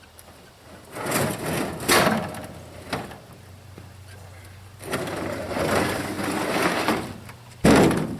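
Rattling, scraping and knocking as equipment is moved around on a truck. The noise comes in several bursts, with a longer scrape about five seconds in and a loud knock near the end.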